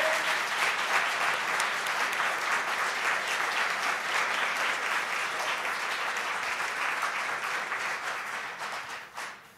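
Audience applauding: many hands clapping steadily, fading away near the end.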